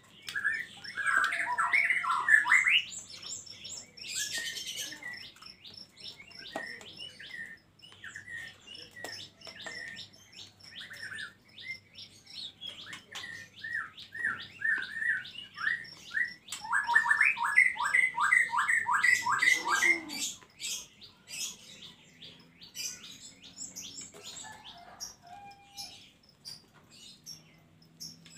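White-rumped shama and oriental magpie-robin chirping and calling in short repeated notes, with a loud burst of calls near the start and a rapid run of about a dozen short notes about two-thirds of the way through.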